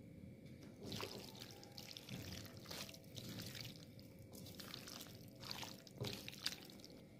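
Silicone spatula stirring and tossing saucy macaroni in a nonstick wok: faint, wet scraping strokes, roughly one a second.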